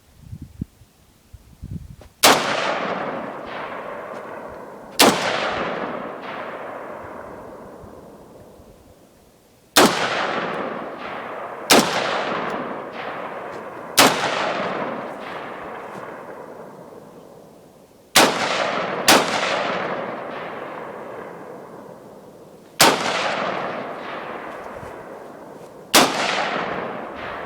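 Nine single shots from an AR-15 pistol at irregular intervals, two of them about a second apart, each followed by a long fading echo. A few light knocks come just before the first shot.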